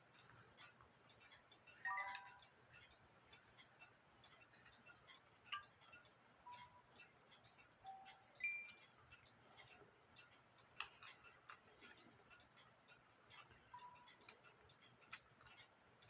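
Faint small clicks of a music box mechanism being handled, with a few single ringing notes, one at a time, as teeth of its steel comb get plucked.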